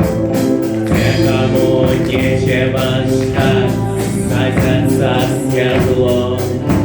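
A live vocal-instrumental band playing a song with a steady beat and a tambourine, with singing coming in about a second in.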